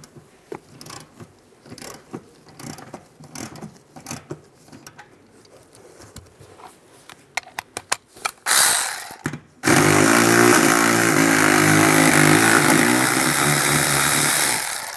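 Faint clicks of a hand ratchet working a seat-mounting bolt, then a cordless electric ratchet on an E14 socket spins the bolt out. It runs in a short burst at about eight and a half seconds, then runs steadily for about five seconds and stops just before the end.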